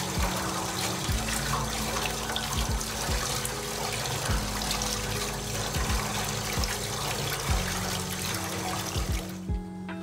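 Kitchen tap running in a steady stream into a stainless steel sink, splashing over hands and a French press plunger as it is rinsed. The water noise cuts off suddenly near the end.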